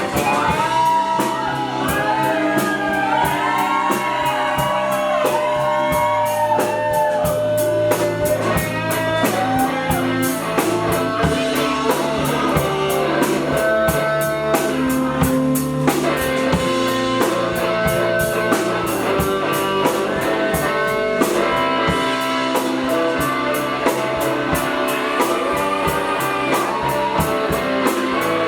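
Live pop-rock band playing an instrumental break: a lead guitar line with bending notes over drum kit and bass.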